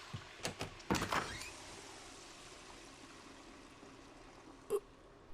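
Anime sound effects at a low level: a few light clicks, a short louder noise about a second in, then a low steady background with one brief knock near the end.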